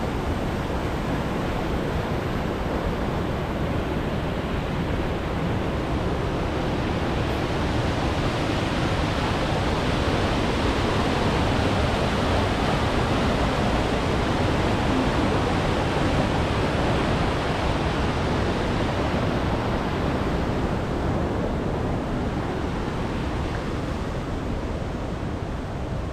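Steady rush of fast-flowing water, louder and brighter through the middle and easing off near the end.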